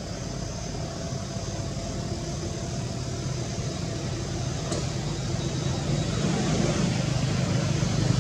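Steady low outdoor background rumble with a faint high hiss, slowly growing louder, and a single faint click about four and a half seconds in.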